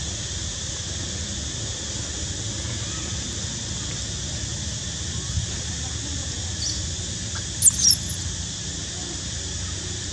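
Baby macaque squeaking: a short high squeak about two-thirds of the way in, then two quick high-pitched squeals that glide up and down and are the loudest sounds, over a steady outdoor hiss.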